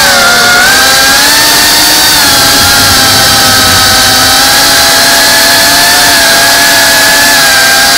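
FPV quadcopter's brushless motors and propellers whining loudly over a rush of prop noise, the pitch gliding down and up with the throttle, dipping just after the start.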